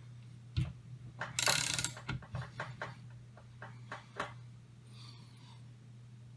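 Screw-type AK barrel press being turned by hand as it presses the barrel into the front trunnion: a run of irregular clicks and ratcheting, with a brief louder scrape about a second and a half in. The clicking stops a little after four seconds, over a steady low hum.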